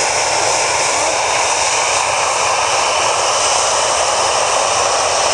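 Panavia Tornado GR4's twin RB199 turbofan engines running at taxi power as the jet rolls along the taxiway: a loud, steady jet rush and whine that does not change in pitch.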